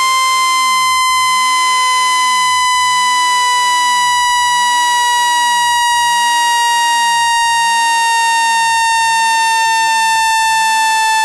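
Electronic speaker-cleaning tone, meant to vibrate water and dust out of a phone speaker: a loud, buzzy, steady tone rich in overtones, its pitch sliding slowly down from about 1 kHz.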